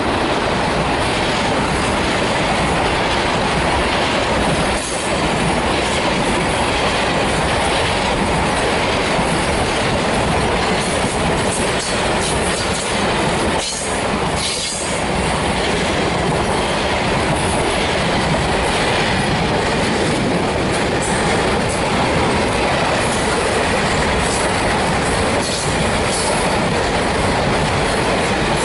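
Grain hopper wagons of a freight train rolling past close by: the steady rumble and rattle of steel wheels on rail.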